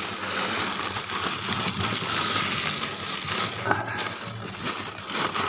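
Frozen plastic bags of bait crinkling and crunching as they are handled among frost in a freezer compartment: a steady rustle with small crackles.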